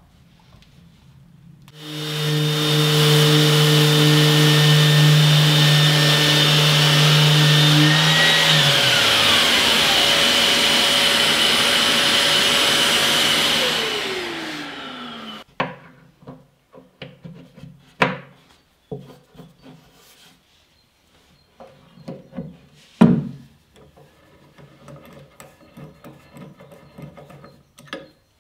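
A power tool starts up and runs steadily for about twelve seconds, then winds down with a falling pitch. A string of sharp knocks and clicks follows.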